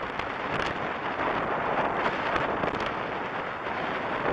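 Storm wind blowing across the microphone, over the steady rush of surf breaking on the beach.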